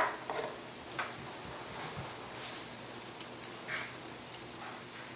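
Light handling noises from assembling a balsa-wood model airplane: a sharp tap at the start, a smaller tick about a second later, then a quick run of about six small, sharp, high ticks from about three to four and a half seconds in.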